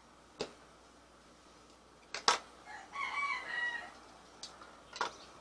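A rooster crows once, about three seconds in, a single call of about a second. Around it come a few short, sharp clicks and knocks, the loudest just before the crow.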